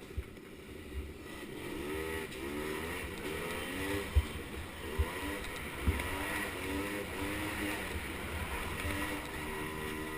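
Small 50cc ATV engine revving up and down over and over, its pitch rising and falling with each throttle blip, with a few sharp thumps midway.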